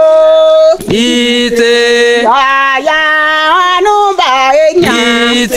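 A voice singing a slow melody in long held notes that step up and down, with light musical backing.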